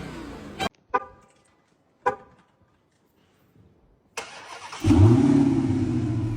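Two short pitched chirps, then about five seconds in a Dodge Challenger Hellcat's V8 engine starts with a brief flare and settles into a steady, loud low run.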